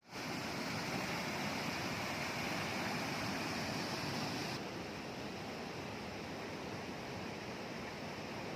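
River water flowing and rushing steadily, a little quieter and duller after about four and a half seconds.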